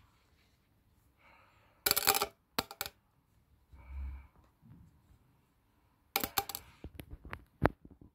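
Two bursts of sharp clattering and clicking from small hard objects being handled, about two seconds in and again about six seconds in; the second burst ends in a few separate clicks.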